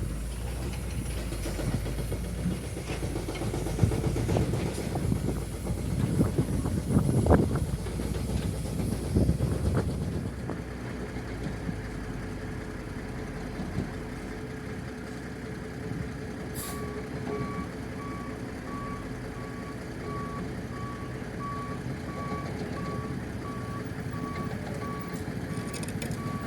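Heavy diesel construction machinery running, with irregular heavy knocks and clatter through the first third. Then a steadier, quieter engine hum, and from about two-thirds of the way in a reversing alarm beeping repeatedly at an even pace.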